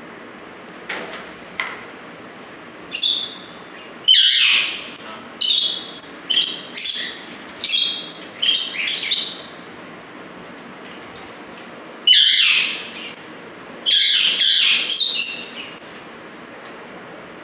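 Alexandrine parakeet screeching: loud, harsh calls in two runs, about nine calls over six seconds, then after a short pause six more in quick succession.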